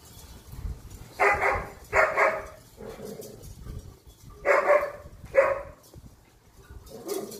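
A German shepherd barking, about six barks, the loudest coming in two close pairs.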